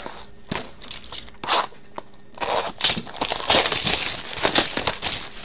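Hockey card pack wrappers being torn open and crinkled by hand: a few light clicks and rustles at first, then steady crinkling from about halfway through.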